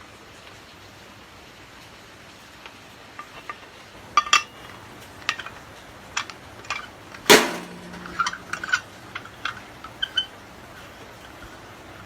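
Light metallic taps and clinks of metal being handled during brazing of an aluminum refrigerator evaporator, with one louder knock about seven seconds in that rings briefly, followed by a run of small clinks.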